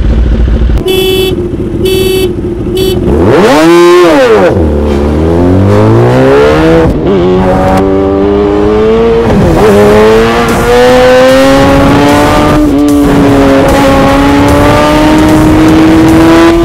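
Three short horn beeps as a drag-race start signal, then an engine launching hard at full throttle. Its pitch climbs steeply, drops at each of several gear changes and climbs again, ending in a long steady pull.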